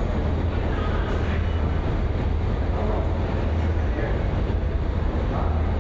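Steady low rumble of a New York City subway train in the station, with people talking faintly in the background.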